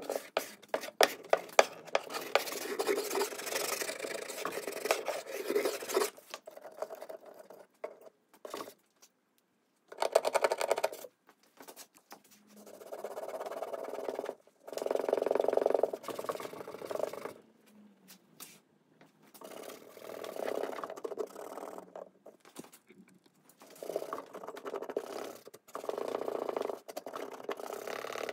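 Hand scraping at a mahogany-veneered wooden top, a quick run of scratchy strokes for the first several seconds. After that, bursts of rubbing, one to three seconds each with short pauses between, as a pad is worked over the surface.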